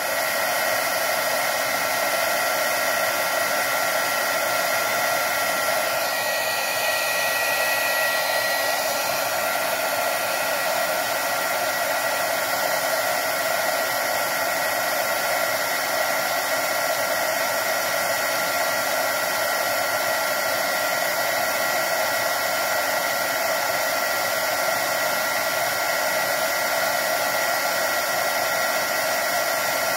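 Heat gun running steadily, a constant rush of air with a faint high whine, blowing on a receiver's HDMI board to preheat it toward about 300 degrees and reflow the solder under its BGA chip.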